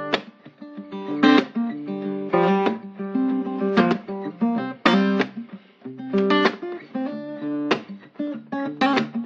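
Background music: acoustic guitar strumming chords, with a strong strum a little over once a second and the notes ringing on between.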